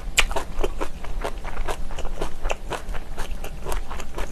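Close-miked chewing of a mouthful of kimchi, wet crisp crunches coming about four times a second with the mouth closed.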